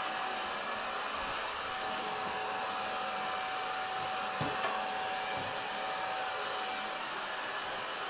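Hoover H-Free 500 cordless stick vacuum running steadily: a constant motor whine over rushing air.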